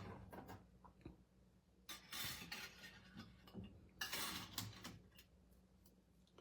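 Faint clicks, clinks and rustles of craft tools and paper being tidied on a work table, with two short bursts of rustling about two and four seconds in.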